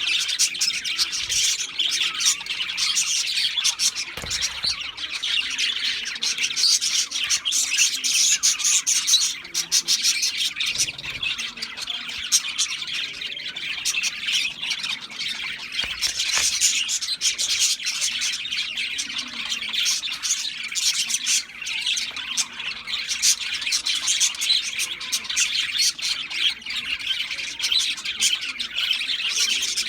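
Budgerigars chattering and chirping without a break, quick high-pitched warbles and squawks running into one another.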